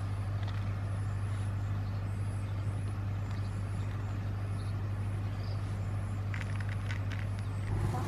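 A steady low hum under a faint even hiss, with a few light clicks near the end.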